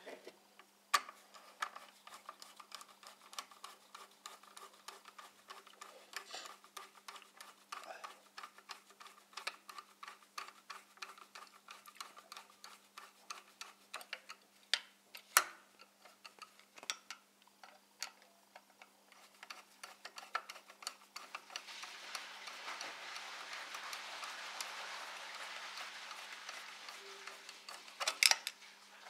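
Screwdriver turning small screws into the DRO scale bracket on a milling machine: light, irregular metallic clicks and ticks, with a couple of sharper clicks. A soft steady hiss runs for several seconds near the end.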